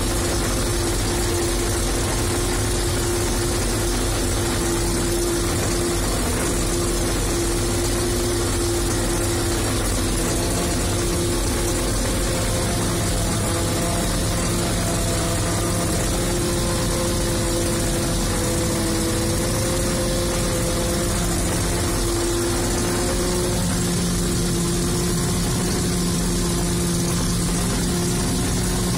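Fortschritt E-281 self-propelled forage harvester working, chopping standing maize, heard from inside the cab: a steady engine and machinery drone with a few held tones that drift slightly in pitch.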